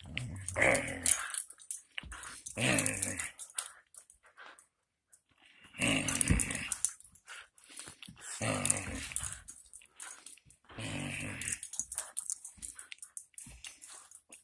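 Australian Shepherd mix dog play-growling while tugging a teddy bear in a game of tug-of-war: five growls of about a second each, a couple of seconds apart.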